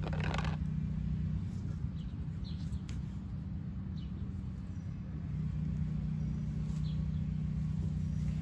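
A steady low hum throughout, with a few short, faint bird chirps.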